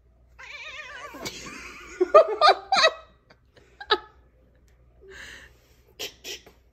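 A domestic cat moans in a long warbling yowl while being held, then a man laughs in a few short bursts.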